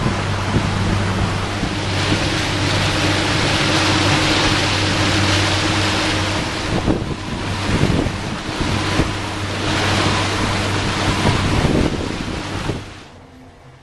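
A motorboat under way: a steady low engine drone under the rush of water from the wake, with wind buffeting the microphone. It all drops away suddenly near the end.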